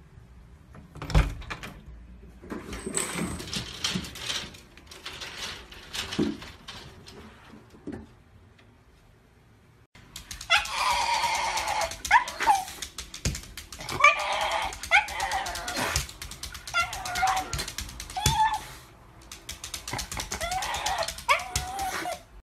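A Shiba Inu whining and yelping in a run of pitched, wavering calls that starts about halfway through. Before that there is a sharp knock about a second in, then scuffling.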